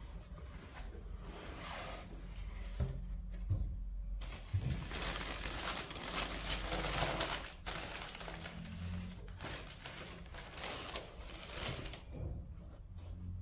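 Crinkling and rustling of paper packaging being handled, as from a shoebox being opened and its wrapping paper moved about, with a few soft knocks; the rustle is densest in the middle.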